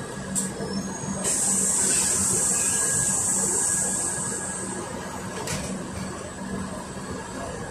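Inside a Volgabus 5270G2 city bus under way: steady hum of its Yuchai natural-gas engine and drivetrain. A loud hiss starts suddenly about a second in and fades out over about three seconds.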